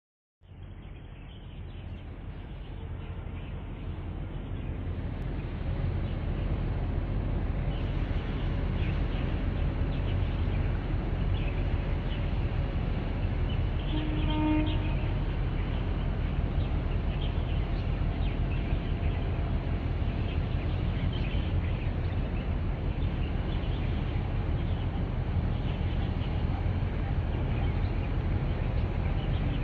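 Low, steady rumble of a large container ship's diesel engine under way outbound, swelling over the first few seconds and then holding. A short pitched toot sounds about halfway through.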